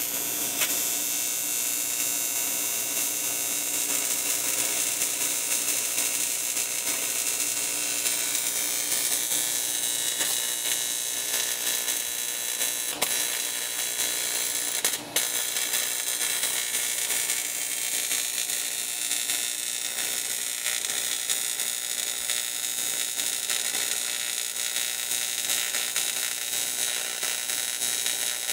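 TIG welding arc burning steadily with a dense buzzing hiss while a gas cap is welded, the arc cutting out for a moment about halfway through.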